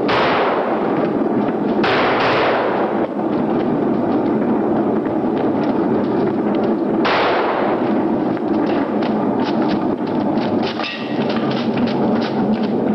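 Pistol firing blanks, about four shots: one at the start, two close together about two seconds in, and one about seven seconds in, each ringing out in a long tunnel echo. Under them runs a continuous rumbling clatter.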